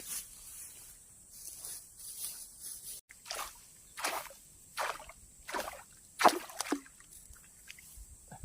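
Footsteps squelching and sloshing through wet mud and shallow water in a waterlogged rice field. A step about every 0.7 seconds, starting about three seconds in.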